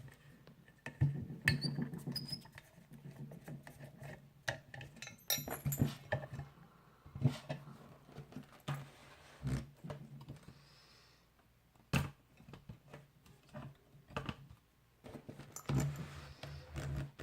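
Scattered metal clicks, clinks and rattles of an opened Schlage round-body padlock and its parts being handled, at irregular intervals, with one sharper click about twelve seconds in.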